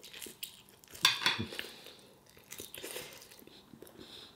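Metal fork knocking and scraping on a plate, loudest about a second in, with chewing in between.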